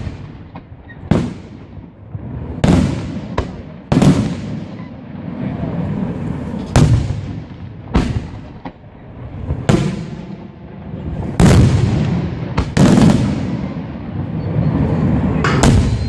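Aerial firework shells bursting overhead: about a dozen sharp booms at uneven intervals, each ringing out in a long echo.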